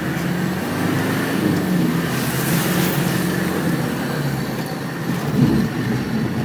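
Land Rover Defender 110 engine running under load as it drives through deep water, its pitch rising and falling, with a rush of water noise about two seconds in.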